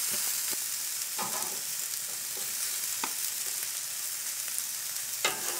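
Chicken satay skewers sizzling on a hot, oiled grill: a steady frying hiss with a few faint pops.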